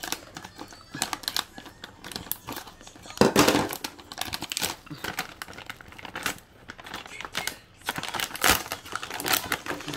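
Plastic snack bags crinkling and rustling as they are handled, a run of sharp crackles with a louder burst about three seconds in and more near the end.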